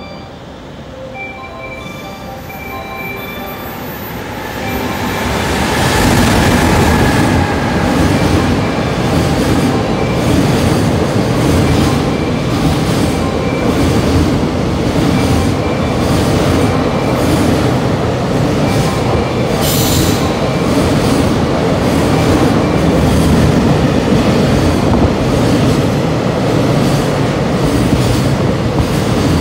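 A JR Freight EF210 'Momotaro' electric locomotive and its long train of container wagons running through the station. The noise swells about five seconds in as the locomotive arrives and then stays loud and steady with rolling wheels and regular clacks of wheels over rail joints.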